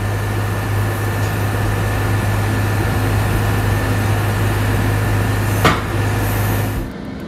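Steady, loud engine-like drone with a strong low hum, broken by one sharp bang about five and a half seconds in; the drone stops near the end.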